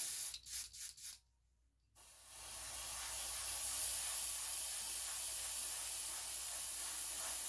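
Gravity-feed airbrush spraying paint through a stencil onto a crankbait. A few short puffs come in the first second, then a steady hiss of air and paint starts about two seconds in and holds.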